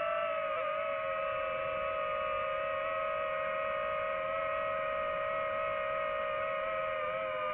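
Drone's motors and propellers whining steadily in flight, the pitch wavering slightly with small dips as it maneuvers.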